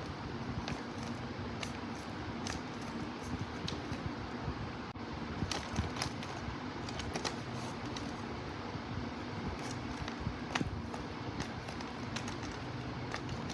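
Slime being worked by hand, giving irregular small clicks and crackles over a steady low hum.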